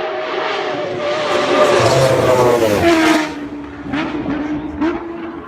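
Motorcycle engine passing by at speed: the note swells to its loudest about two seconds in, then drops sharply in pitch as the bike goes past, and falls away to a lower, steady note.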